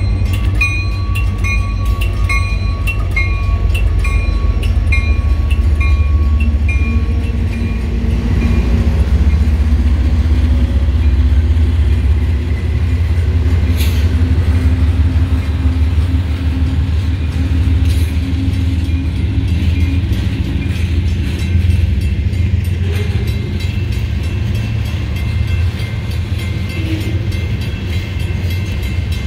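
Three Union Pacific diesel-electric freight locomotives rumbling past at very slow speed, followed by freight cars rolling by. A grade crossing bell rings steadily about twice a second and fades out after about eight seconds.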